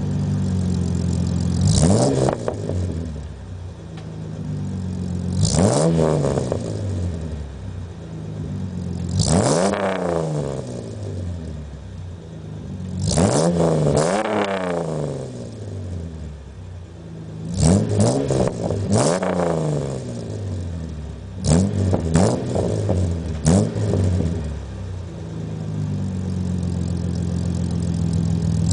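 Ford Ranger 3.0-litre V6 running through a true dual exhaust with a crossover and Cherry Bomb mufflers, idling and being revved. The engine is blipped up and drops back to idle several times, a few seconds apart at first, then in quicker, shorter blips in the second half.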